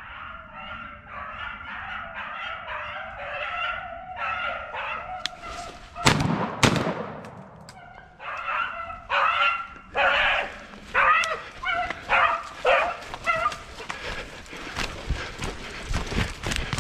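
Rabbit-hunting dogs baying in repeated cries as they run a rabbit, broken about six seconds in by two sharp loud bangs, then baying again. Near the end, many short crunching steps through dry leaves and brush.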